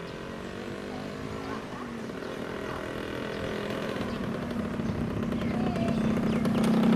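An engine drone that grows steadily louder as it approaches, one steady low tone.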